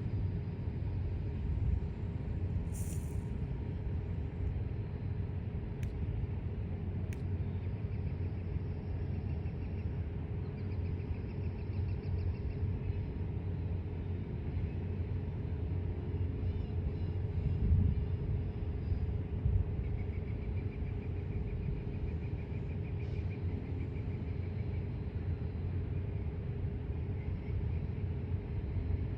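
Low, steady rumble of a slow freight train rolling through a grade crossing, with a steady hum over it.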